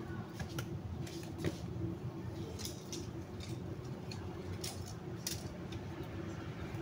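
Dry twigs and branches being gathered and handled, giving a scatter of light cracks and clicks over a steady low background hum.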